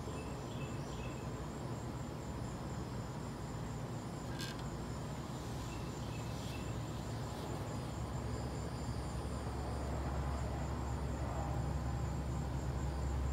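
Insects chirping: a steady, high, evenly pulsing trill. A low rumble grows louder in the second half, with a single click about four and a half seconds in.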